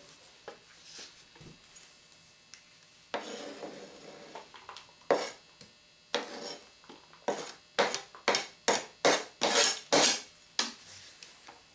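Diced onion being scraped off a plastic cutting board into an aluminium foil pan: a sliding scrape, then two sharp knocks, then a run of about nine short scraping strokes, two or three a second.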